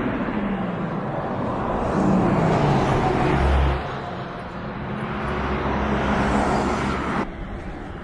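A motor vehicle driving past, its engine note falling in pitch as it goes by, over a steady rush of road noise. The noise drops off suddenly near the end.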